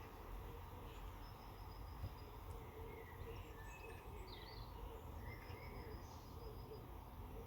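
Faint birds chirping, short scattered calls over a low steady background rumble.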